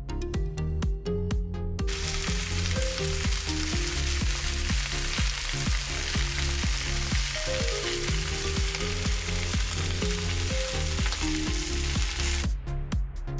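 Food sizzling in hot fat. The sizzle starts about two seconds in and stops near the end, over background music with a steady beat.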